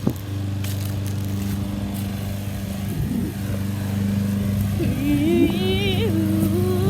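Steady low hum of a running motor or engine. About five seconds in, a wavering high-pitched voice-like sound joins it.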